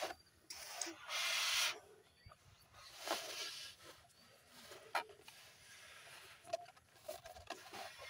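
Children blowing up rubber balloons by mouth: breathy puffs of air, the strongest about a second in and another around three seconds, with a sharp click about five seconds in and small clicks and squeaks of handled rubber.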